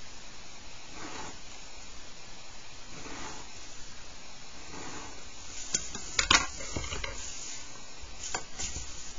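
Pencil lines drawn on paper along a plastic set square, soft scratchy strokes about every two seconds. Around six seconds in, a few sharp clicks and knocks as the plastic set square is moved and set down on the page, with two more light knocks near the end.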